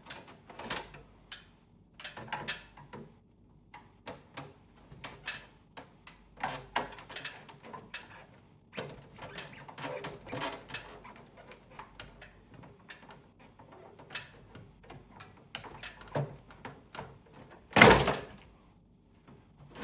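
Irregular plastic clicks, knocks and rattles as the front frame of an AUX split air conditioner is worked loose, with one much louder knock near the end.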